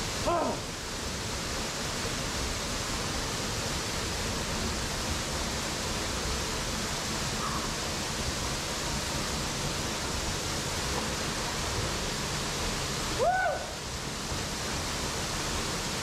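Steady rushing roar of a waterfall pouring into a pool. There is a short rising-and-falling call just after the start and another near the end.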